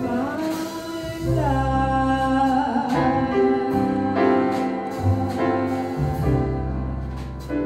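A woman singing a slow jazz vocal line with small-band accompaniment: piano and double bass underneath, the voice gliding between held notes.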